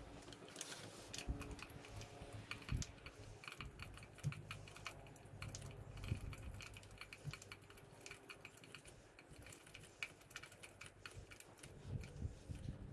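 A new NGK spark plug being threaded by hand into the cylinder head of a Suzuki Hayabusa, with faint, scattered light clicks and ticks of metal parts being handled, over a faint steady hum.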